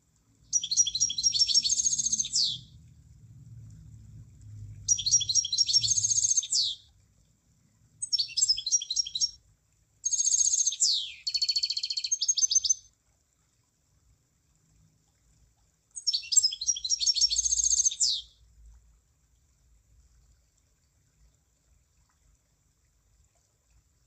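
Emprit (munia) singing: five short song phrases of rapid high chirps, each about two seconds long, several ending in a quick falling note, with short silent gaps between them.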